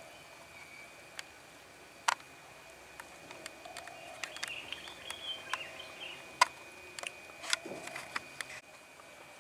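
Quiet background with a few sharp clicks and taps, the loudest about two seconds in and again past six seconds, and faint bird-like chirps near the middle over a faint steady high tone.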